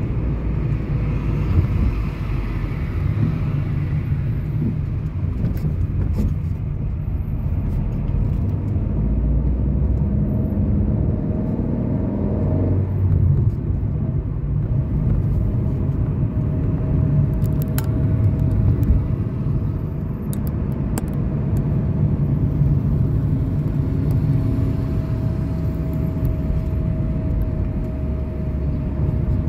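Steady low road and engine rumble from inside a moving car. About ten seconds in, an engine tone rises as the car picks up speed, and it settles into a steady hum.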